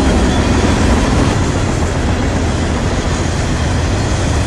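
Freight cars rolling past close by: a steady, loud rumble and rattle of steel wheels on the rails.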